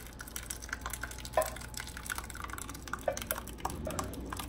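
Thick corn batter being poured from a ceramic bowl into a metal baking pan and pushed out with a silicone spatula: scattered soft wet plops and drips, with one sharper knock about a second and a half in.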